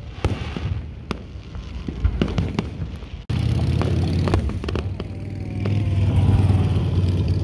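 Aerial fireworks shells bursting in a rapid series of bangs and crackles. After about three seconds a steady low rumble runs under the bangs.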